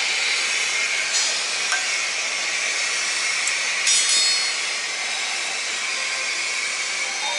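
Steady hiss of water rushing from a filling hose into a railway car's water tank, part of it spilling out. A metallic clink rings out about four seconds in.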